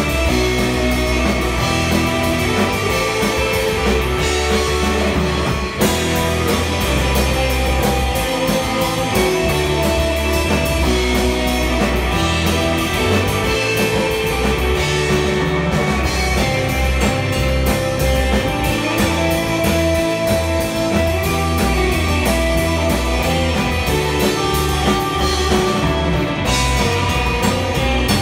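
Live surf rock band playing an instrumental: a lead electric guitar melody over rhythm guitar, bass guitar and drum kit, loud and steady.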